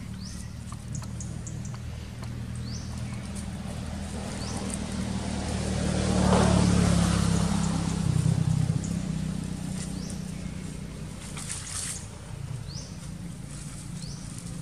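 A motor vehicle's engine passing by, growing louder to a peak about halfway through and then fading. A few short rising bird chirps are heard over it.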